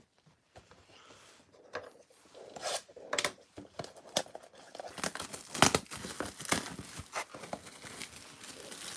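Clear plastic shrink wrap on a sealed trading-card hobby box being torn and crinkled, in irregular crackles that get louder about halfway through.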